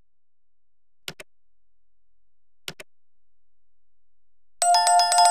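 Subscribe-animation sound effects: two quick double mouse clicks about a second and a half apart, then near the end a loud bell chime, struck rapidly several times and left ringing.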